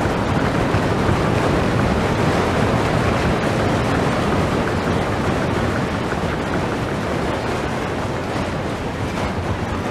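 A large audience of children applauding: dense, even clapping that eases off slightly toward the end.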